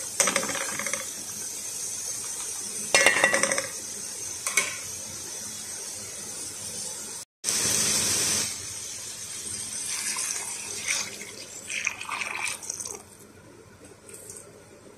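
Spatula scraping and clattering against a steel pot while diced vegetables are stirred, over a steady hiss. After a break about seven seconds in, water is poured into the pot onto the vegetables, splashing and filling.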